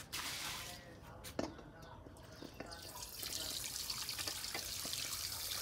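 A pot of water bubbling on a gas burner, with a steady hiss that grows louder about halfway through and a few light clicks.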